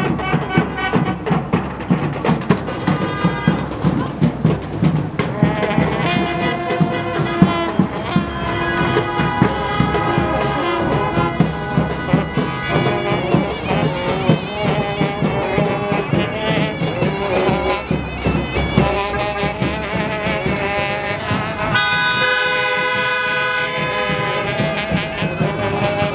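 Background music: an instrumental track with held, horn-like melody notes over a steady beat.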